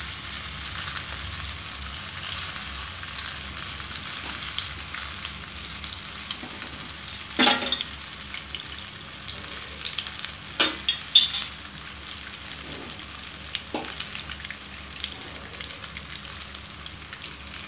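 Vegetable pakoras deep-frying in hot oil in a frying pan: a steady crackling sizzle. A few short, sharp knocks stand out from it partway through.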